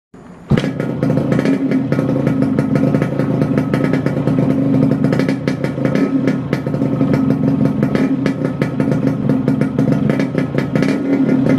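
Yamaha RX King's 135cc single-cylinder two-stroke engine, breathing through a Cobra expansion-chamber exhaust, comes in about half a second in and runs steadily at idle with a fast, uneven two-stroke crackle. It has a light metallic ting from the exhaust chamber's metal.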